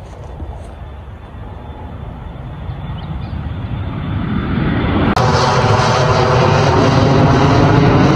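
Twin-engine private business jet taking off and climbing overhead: its jet engines run as a steady roar that grows steadily louder, with a sudden jump in loudness about five seconds in.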